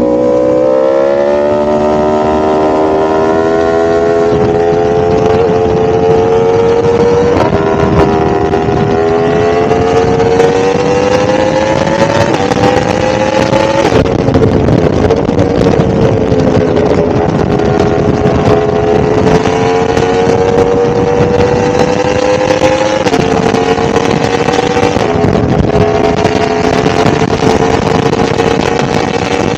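A 1000cc motorcycle engine running under way. Its note climbs at the start, then rises and falls gently with speed, and steps sharply a few times as gears change.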